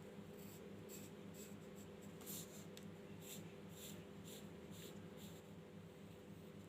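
Pencil strokes scratching on paper while drawing, faint and repeated about twice a second, over a low steady hum.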